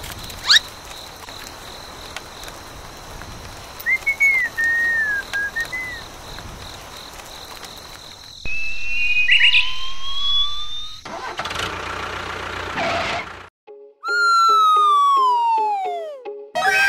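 Added cartoon sound effects over a steady outdoor background: a quick rising chirp near the start, a short warbling call about four seconds in, rising whistle tones later, and near the end a long falling whistle over a pulsing hum.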